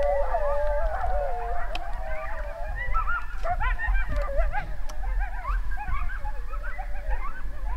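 Coyotes calling: a long wavering howl that ends about half a second in, then a chorus of quick rising-and-falling yips that dies away near the end.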